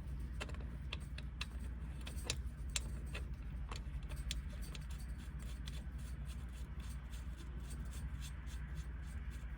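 Light, irregular metallic clicks and taps from handling a transfer case drain plug and its washer, over a steady low hum.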